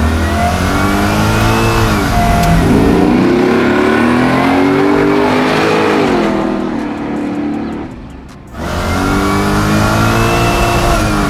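A twin-turbo V8 in a 1970 Chevelle SS accelerating hard through the gears. The engine note climbs and falls back at each upshift, twice. About eight seconds in the sound briefly drops away, then the engine climbs again.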